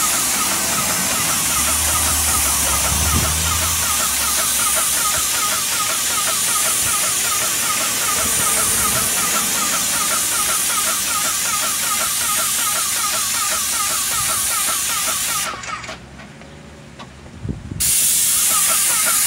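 Airless paint sprayer gun spraying paint onto siding: a steady hiss with a fast pulsing tone in it. The spray stops for about two seconds near the end, then starts again.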